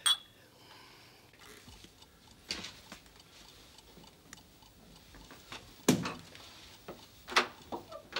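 A few separate knocks and clicks in a quiet room, with fainter ticks between them: a door and footsteps as a man comes in carrying a suitcase. The loudest knocks come about six and seven and a half seconds in.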